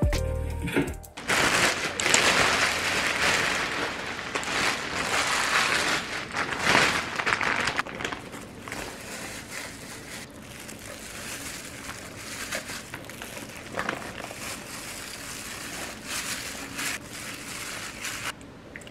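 A plastic bag crinkling and rustling as gloved hands lift cabbage kimchi out of it into a plastic container, loudest for the first several seconds and then softer, scattered rustles.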